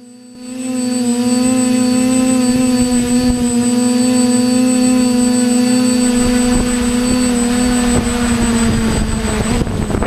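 TBS Discovery quadcopter's brushless motors and 9.5-inch propellers whining steadily, heard from the GoPro mounted on the frame, with loud rushing air coming in about half a second in as it descends. Near the end the whine sags and cuts out, and a few knocks follow as the quad touches down on the pavement.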